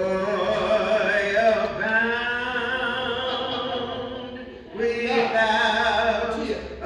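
A woman singing solo into a handheld microphone, drawing out long held notes in two slow phrases with a short breath between them about two-thirds of the way through.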